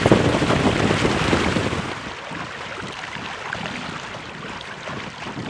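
Wind buffeting the microphone and water rushing and splashing along the hull of a Weta trimaran under sail. About two seconds in it drops to a quieter, steady hiss of wind and water.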